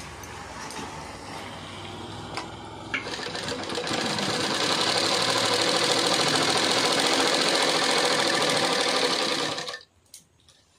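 A Romer sewing machine driven by a small electric motor starts up about three seconds in, runs at a steady fast speed stitching quilted cloth, and stops suddenly near the end. Before it starts there is cloth rustling and a couple of clicks as the fabric is set under the needle.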